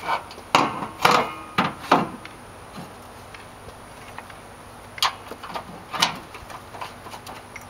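Metal-on-metal clanks and knocks of a pickup's metal upper radiator core support brace being set back in place: five sharp knocks in the first two seconds, one of them ringing briefly, then two more about five and six seconds in.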